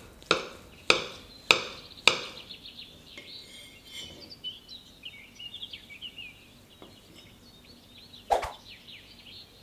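A knife chopping down through the sponge cake onto a serving tray four times, evenly spaced about half a second apart, each a sharp knock with a short ring. Faint high chirping follows, and a single clink of cutlery against a ceramic plate comes near the end.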